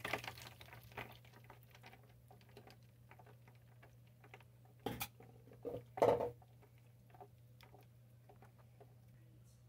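Ice cubes settling and crackling in the warm water of a nitrous bottle heater's water bath: a scatter of small clicks and ticks, thick at first and thinning out. Two louder knocks come about five and six seconds in, over a faint low steady hum.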